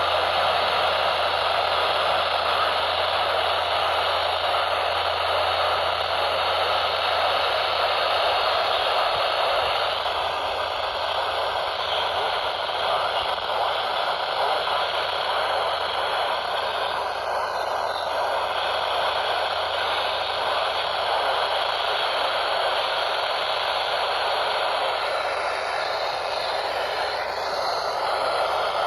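Radio static: a steady, loud hiss of noise from a radio receiver, with no voice or alert tones, and a faint low hum that fades out about ten seconds in.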